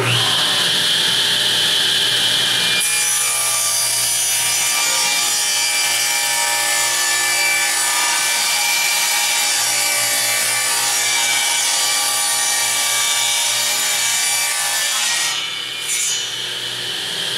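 Table saw starting up and ripping a wooden board lengthwise, a steady cutting noise that begins about three seconds in as the board meets the blade. The noise eases near the end as the board clears the blade.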